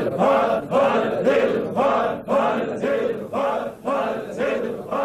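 Many men's voices chanting a short phrase in unison, repeated in a steady rhythm about twice a second: group zikr, the Sufi remembrance chant.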